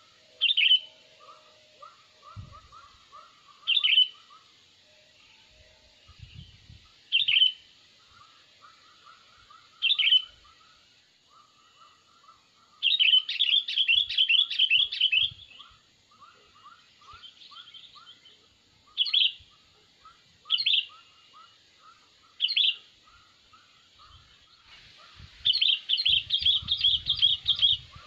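Sooty-headed bulbuls (kutilang) calling: sharp single calls every few seconds, twice breaking into a rapid chattering run of notes, over a fainter bird repeating short chirps steadily underneath.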